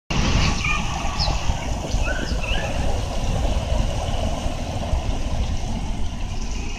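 Outdoor park ambience: wind buffeting the microphone as an uneven rumble over a steady wash of noise, with a few short bird chirps in the first few seconds.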